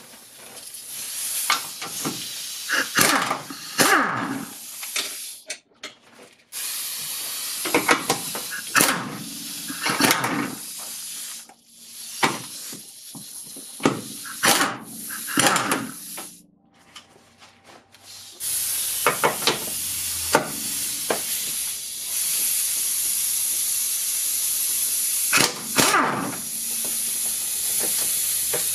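Hand tools working the strut top-mount nuts: scattered short knocks and clicks of metal tools, over a steady hiss that starts and stops abruptly several times.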